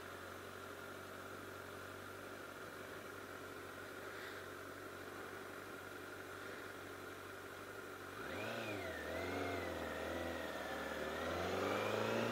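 Honda CBR1000RR Fireblade's inline-four engine idling steadily while the bike is stopped. About eight seconds in it revs up and gets louder as the bike pulls away, its pitch rising and dipping with the throttle.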